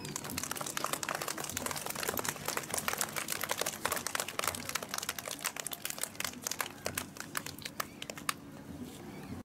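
A group of young children clapping, an irregular patter of claps that thins out and stops near the end.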